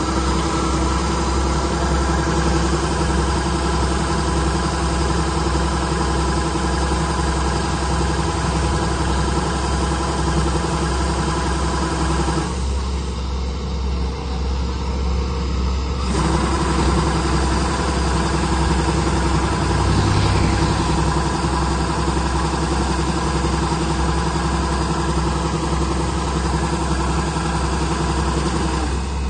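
Heavy machine's engine running steadily with a low rumble and a constant hum; the hum's tones drop out for a few seconds about halfway through, then return.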